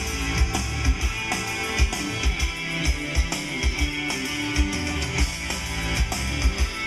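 Rock music with guitar and a driving drum beat.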